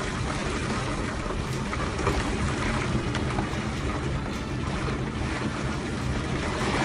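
Storm noise: a steady roar of wind and surging, churning water, with wind buffeting the microphone.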